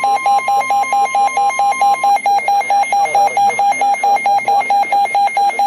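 Weather-radio warning alert: a steady high alarm tone, the NOAA Weather Radio warning tone, stops about two seconds in. Under it and on past it, a rapid electronic alarm beep pulses about six times a second. It cuts off as the severe thunderstorm warning message starts.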